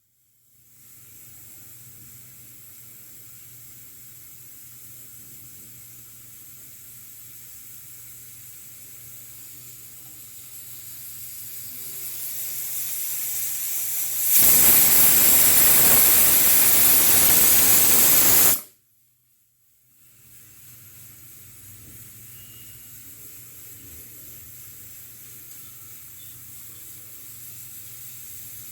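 Pressure cooker steam hissing quietly and slowly getting louder as pressure builds, then the whistle going off: steam blasts out loudly for about four seconds and stops abruptly. After a second of silence, a new quiet hiss of building steam starts.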